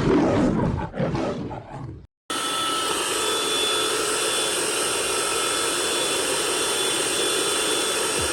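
Hoover ONEPWR cordless stick vacuum running steadily, a motor whine over a constant rush of air. It starts about two seconds in, after a short burst of uneven noise that cuts off abruptly.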